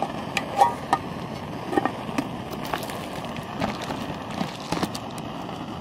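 Crinkling and clicking of a foil-bubble insulated pot cozy and a metal cooking pot being handled as the pot is set into the cozy: a run of sharp crackles and taps, the loudest under a second in, over a steady rushing noise.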